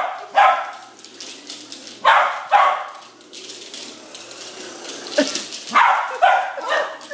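Small dog barking at a remote-control toy car: about six sharp barks, mostly in quick pairs with pauses between.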